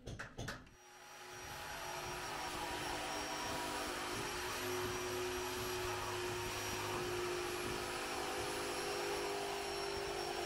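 Electric jigsaw running and cutting a curve through rough wooden boards: a steady motor whine with the blade's buzz, starting about a second in after a few clicks of handling.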